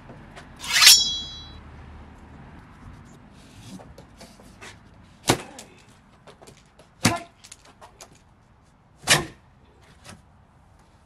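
A sharp metallic ring about a second in, then a knife cutting into a cardboard shipping box: a few short, sharp rips and knocks about two seconds apart.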